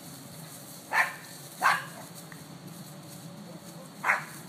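Yorkshire terrier barking while playing: three short, sharp barks, two close together about a second in and one more near the end.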